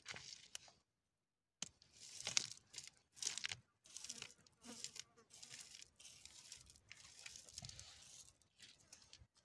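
Faint, irregular scratchy rustling and crackling in short patches: handling noise.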